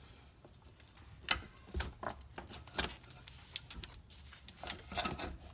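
Irregular clicks and knocks of a BMW i3's 12-volt auxiliary battery being shifted and tilted in its plastic compartment among its cables, as it is worked up over the lip to reach the positive terminal.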